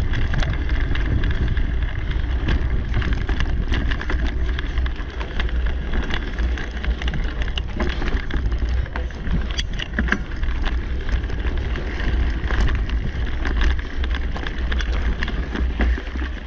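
Mountain bike rolling fast over a dirt singletrack trail: a steady rumble of wind on the microphone with tyre noise, and frequent irregular clicks and rattles from the bike jolting over bumps.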